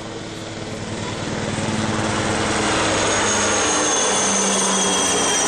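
Helicopter flying low overhead, its rotor chop and a high turbine whine growing louder over the first few seconds as it closes in, then holding steady.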